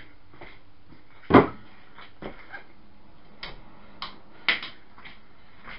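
A sharp knock about a second and a half in, then several lighter clicks and knocks from things being handled and moved about.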